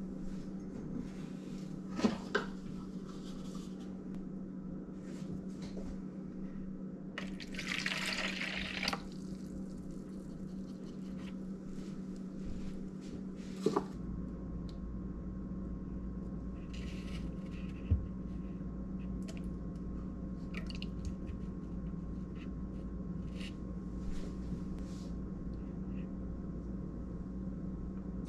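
Quiet kitchen handling: liquid ingredients such as melted butter and beaten egg poured into a plastic mixing bowl, with a few light knocks of a measuring cup. A steady low hum runs underneath.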